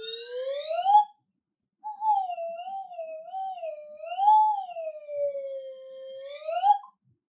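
A single clear tone gliding up and down in pitch, in two long phrases: a rising sweep, a short break after about a second, then a wavering line of slow swoops that ends in a rise.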